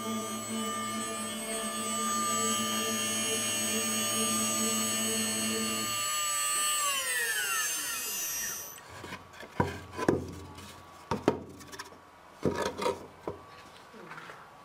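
CNC router spindle running with a steady whine and hum; about six seconds in the hum cuts off and the spindle spins down, its pitch falling until it stops. Then several sharp wooden knocks as the carved wooden panel is handled.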